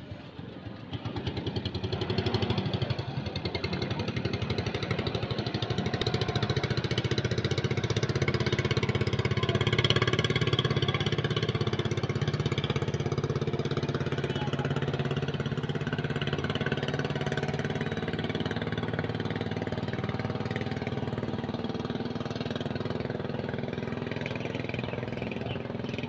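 Small boat engine running steadily with a rapid, even beat. It rises about a second in, is loudest around ten seconds in, then slowly fades.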